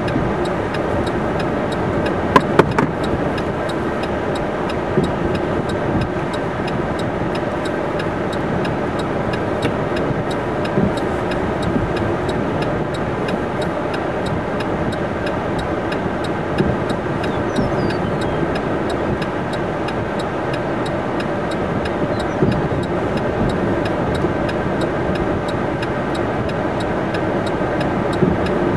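Steady hum of a vehicle running, heard from inside the cab. Faint regular ticking runs throughout, and two sharp knocks come about two and a half seconds in.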